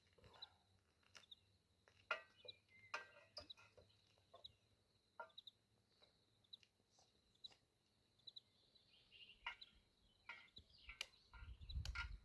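Faint outdoor ambience: scattered short clicks and brief high chirps of birds, over a faint steady high-pitched hum with regular small ticks.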